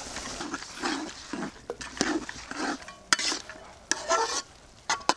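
Spoon stirring and scraping frying goat-head meat in an aluminium pot: a string of separate scrapes with several sharp clinks against the metal, over a faint sizzle.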